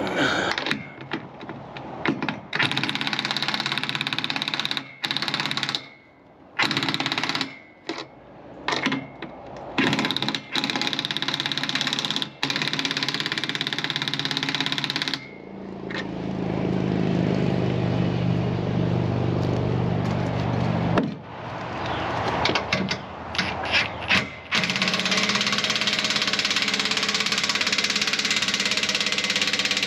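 Power tool running in repeated bursts with short pauses, with a steadier stretch carrying a low hum in the middle.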